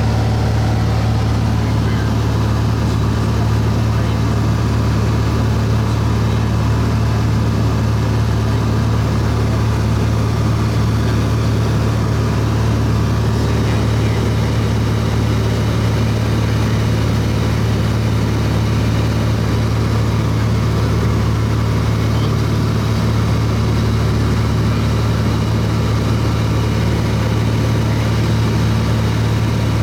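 Light aircraft's engine and propeller droning at a steady, even pitch, heard from inside the cabin in level cruise.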